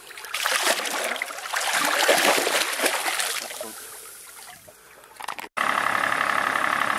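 Water splashing and sloshing at the boat's side as an unhooked tope is let go, dying away after a few seconds. After an abrupt cut near the end, the boat's engine idles with a steady whine.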